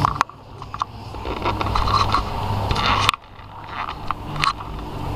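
Handling noise on a small action camera's microphone as the camera is moved about: rubbing and scraping with a few sharp knocks. The noise drops off suddenly twice and builds up again.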